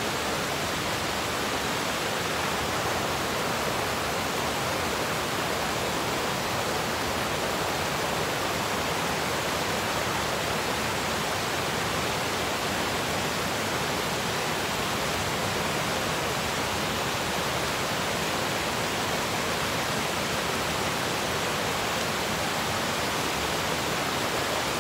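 River waterfall and cascades rushing steadily in white water over rock ledges.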